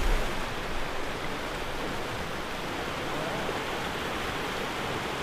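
South Platte River rushing steadily over rocks and riffles: an even, unbroken rush of water.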